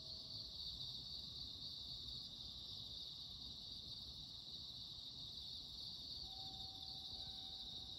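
Steady, continuous high-pitched chorus of night insects chirping over a faint low rumble, with a faint steady tone joining about six seconds in.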